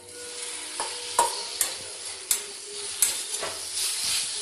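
Marinated chicken pieces going into hot oil with fried onions in a steel pan and starting to sizzle, the hiss swelling as they land. About six sharp metal clinks of the steel spatula and bowl against the pan as the pieces are stirred in.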